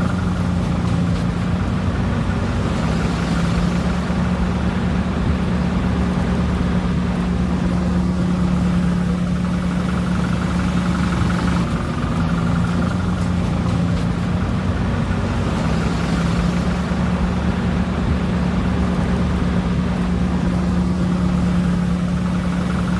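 A vehicle engine running steadily: a low, even hum over road and wind noise, shifting slightly in pitch a couple of times.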